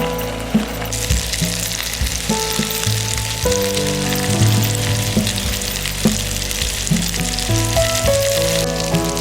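Food sizzling in a frying pan, a steady hiss that starts about a second in and cuts off near the end, over background music.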